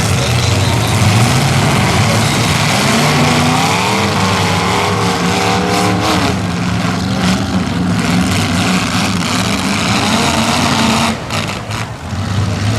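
Several demolition derby cars' engines running and revving hard, their pitch rising and falling in the middle. The sound briefly drops off near the end.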